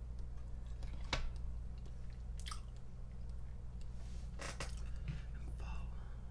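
A person chewing a bite of mac and cheese pizza, with a few short, sharp crackly clicks from the mouth over a steady low hum.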